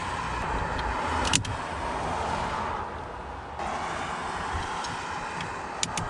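Steady low background noise with a sharp click about a second and a half in and two more near the end.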